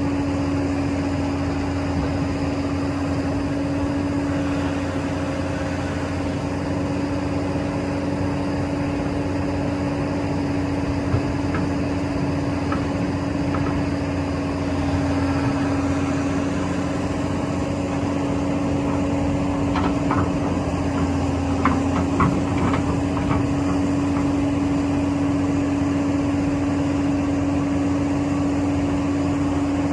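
Hydraulic excavator's diesel engine running steadily with a constant drone, with a cluster of short knocks about twenty seconds in.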